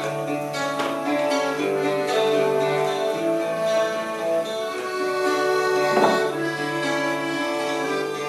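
Instrumental break in a live folk song: accordion-like held notes carry the tune over a steady low drone, with guitar underneath.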